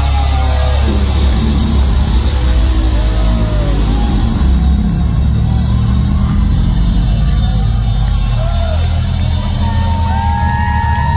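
Heavy metal band playing live through a loud concert PA, with distorted guitar, bass and drums and the crowd yelling along. A few high sliding tones come in near the end.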